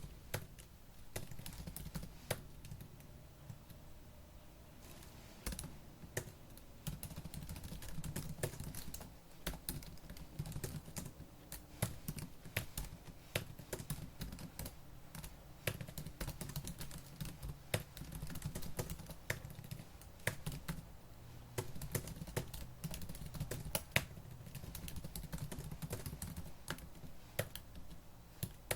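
Fast typing on a laptop keyboard: a continuous, irregular patter of soft key clicks with the occasional louder keystroke.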